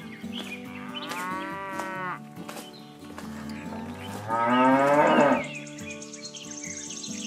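Cattle mooing twice: a moo about a second in and a louder one about four and a half seconds in, each lasting about a second.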